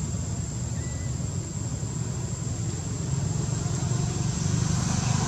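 Steady low rumble, growing louder from about three seconds in.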